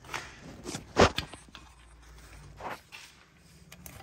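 A few irregular knocks and scuffs, the loudest about a second in, from handling and moving around while working under the car.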